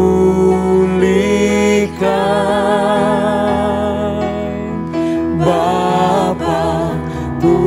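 Worship song: a solo voice holding long notes with vibrato over sustained backing chords.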